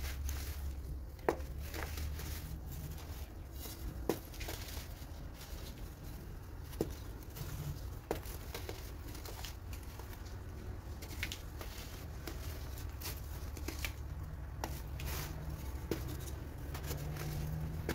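Molded baking soda chunks crunching and crumbling into powder under pressing fingers: scattered soft crackles and small clicks, over a steady low hum.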